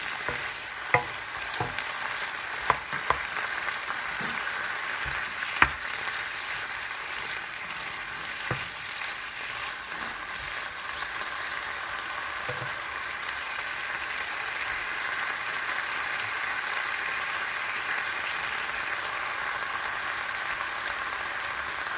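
Strips of beef sizzling steadily in a frying pan, stirred with a wooden spoon that knocks against the pan a few times in the first several seconds.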